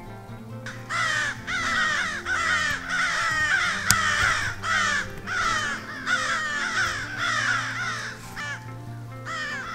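A flock of crows cawing: many loud, harsh caws overlapping in a steady chorus that starts about a second in, with a brief lull near the end before the cawing picks up again.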